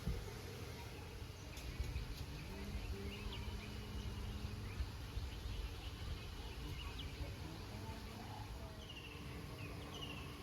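A flying insect such as a bee or fly buzzing, over a steady low rumble of outdoor noise. Near the end come a few short falling chirps, typical of a bird calling.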